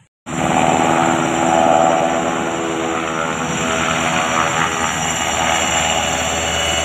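Military helicopter running close by: a steady high turbine whine over the engine and rotor noise. It begins suddenly a moment in.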